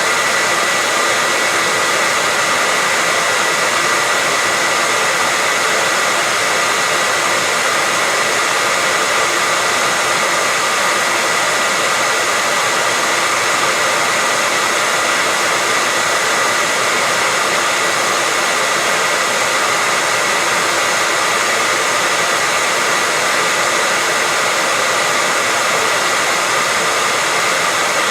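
Electric hair dryer running steadily: a constant rushing of air with a steady high whine from its fan motor.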